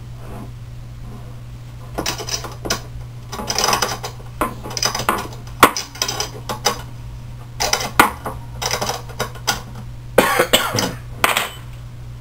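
Steel threaded rods, nuts and washers of a Prusa Mendel frame clinking and rattling as they are handled and fitted together, in irregular bunches of small metal taps, over a steady low hum. The first couple of seconds hold only the hum.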